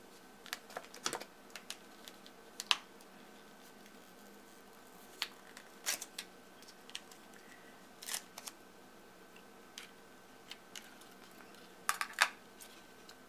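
Scattered light clicks and taps of a plastic slime tub and its lid being handled, long fingernails clicking on the plastic.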